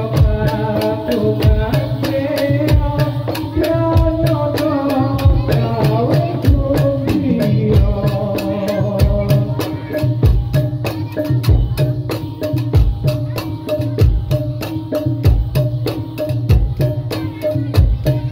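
Live gamelan music for a Jathilan horse dance: a deep drum beat a little over once a second under fast, even clicking percussion. A bending melody line in the first half glides downward and gives way to short repeated notes.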